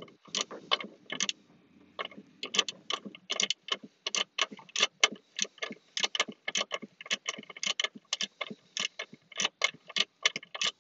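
Socket ratchet clicking rapidly and regularly as it is worked back and forth to turn a fastener, several clicks a second, with some rustling handling noise in the first couple of seconds.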